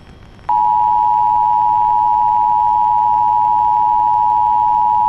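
Emergency Alert System attention signal: a loud, steady two-tone alarm starting about half a second in, which introduces a tornado warning broadcast.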